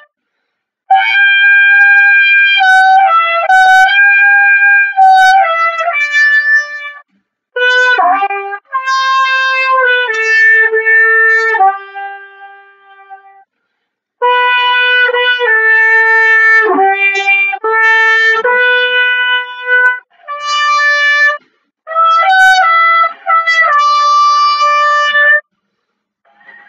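Unaccompanied solo trumpet playing an orchestral excerpt: five phrases of held, singing notes, each phrase ending in a short pause for breath.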